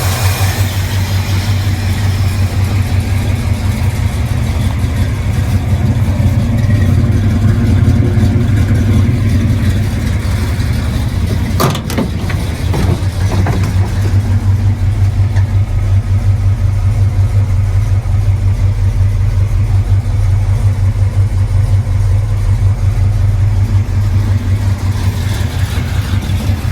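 1975 Ford F250 Highboy's engine running steadily at idle while still cold, its carburetor freshly adjusted, with an even pulsing exhaust beat. A sharp click about halfway through.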